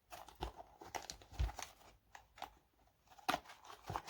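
A Pokémon card box being handled and pried at by hand: scattered clicks, scrapes and crinkles of packaging, with a low thump about a second and a half in.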